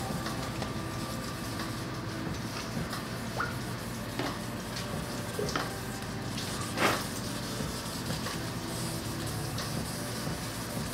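Wet sanding of a plastic headlight lens by hand with a sanding block and water: a steady rubbing with a few short squeaky strokes, the loudest about seven seconds in.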